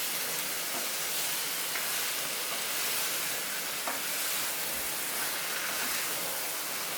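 Chicken and onion-spice masala sizzling steadily in hot oil in a pan as they are stirred together, with a few faint clicks.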